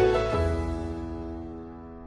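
Background music: a chord struck just after the start, then held and slowly fading away.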